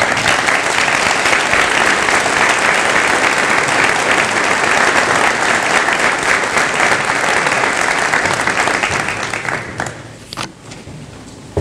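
Large audience applauding steadily, then thinning out and dying away about nine to ten seconds in, with a single knock shortly after.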